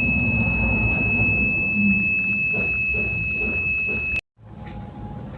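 Piezo buzzer of a homemade BC547 transistor alarm circuit sounding one continuous high-pitched tone, with a low hum underneath; the alarm has been triggered. The tone cuts off suddenly about four seconds in.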